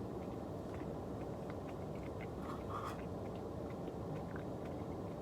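Quiet chewing of ice cream with cookie-dough pieces, with small wet mouth and spoon clicks, over the steady hum of a running car's air conditioning.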